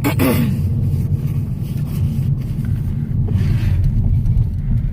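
Car engine and road noise heard from inside the cabin, a steady low rumble while driving in slow traffic. A brief falling pitched sound comes right at the start.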